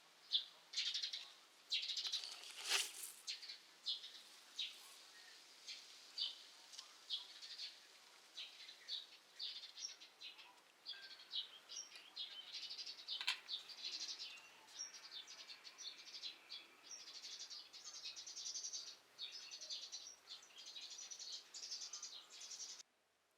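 Small songbirds chirping and twittering: a dense run of short, high calls that cuts off suddenly near the end.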